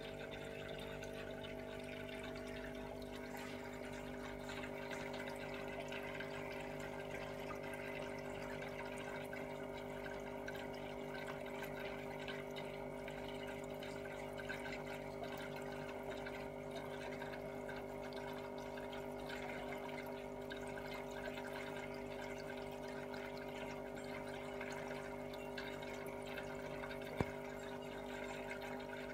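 Aquarium filter running: a steady trickle of water over a constant pump hum. One sharp click near the end.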